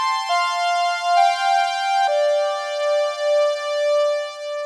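Arturia Solina V software synthesizer, an emulation of a 1970s string machine, playing sustained high-register chords played from a keyboard. The chord changes a few times in the first two seconds, then one chord is held with a slow pulsing swell.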